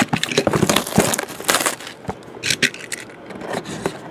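Plastic shrink wrap on sealed trading-card boxes crinkling and crackling as the boxes are picked up and handled. The crackling is dense for about two seconds, then thins to a few scattered clicks and taps.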